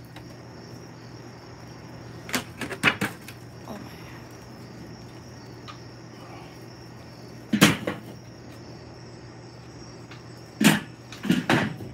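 Sharp metal clanks and knocks at a charcoal kettle grill, in three clusters about two and a half, seven and a half and ten and a half seconds in. The last cluster comes as the domed steel lid is set on the grill. A steady chirring of crickets runs underneath.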